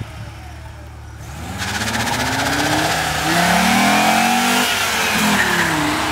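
Audi Coupé (Typ 81/85) accelerating hard past the listener. The engine note climbs in pitch and loudness from about a second and a half in, is loudest as the car goes by about four seconds in, then drops in pitch as it pulls away.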